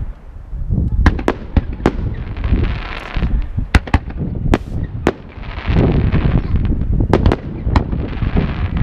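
Aerial firework shells launching and bursting in a display: a rapid string of sharp bangs, about two a second, over a continuous low rumble and hiss.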